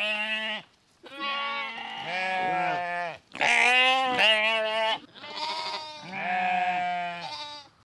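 Sheep bleating: a run of long, quavering bleats, one after another with short pauses between them.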